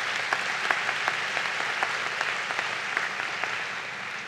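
Audience applauding, a dense patter of many hands clapping that dies down near the end.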